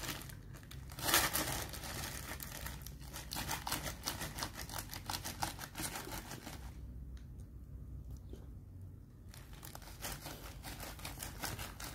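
Zip-top plastic bag packed with ice and coarse salt being shaken by hand: a rapid run of plastic crinkling and rustling that eases off about seven seconds in and picks up again near the end. This is the churning stage of bag-made ice cream, freezing the milk in the inner bag.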